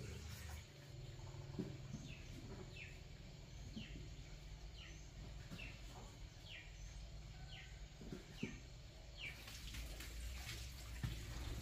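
A bird calling a series of about eight short, downward-sliding notes, a little under one a second, stopping about nine seconds in, over faint low background rumble with a few soft knocks.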